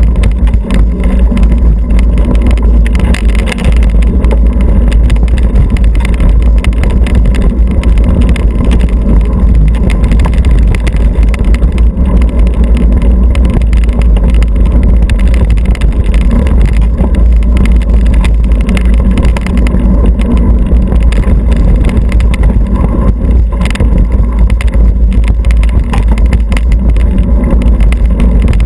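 Wind buffeting the microphone of a bike-mounted action camera, together with the rumble and rattle of a mountain bike's tyres and frame over a dirt singletrack trail: a loud, steady low rumble with scattered small knocks.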